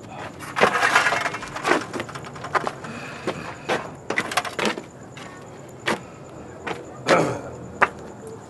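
A series of irregular knocks and clatters, some followed by brief scraping.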